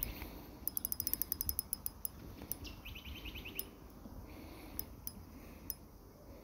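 Fishing reel clicking while a carp is played on an ultralight rod: a quick run of about ten clicks a second lasting just over a second, then a few scattered clicks.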